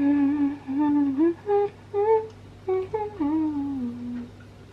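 A young woman humming a tune with closed lips: a few held notes that glide up and down, stopping about four seconds in.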